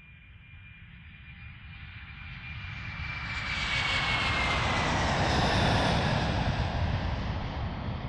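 A rushing roar that swells over about four seconds, then eases slightly, with a thin whistle gliding slowly down in pitch.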